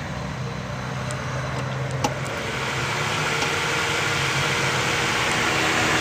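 Electric radiator cooling fan running and growing steadily louder as it spins up, with a single click about two seconds in. It runs because the two terminals of the coolant temperature switch are bridged with a jumper wire. That shows the fan, relay and wiring work, and that the switch itself has failed.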